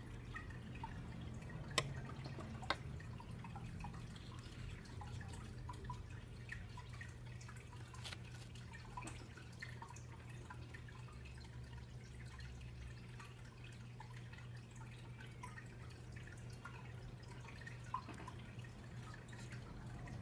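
Faint steady low hum with scattered small ticks and pings, and a few sharper clicks about two seconds in and again near the end.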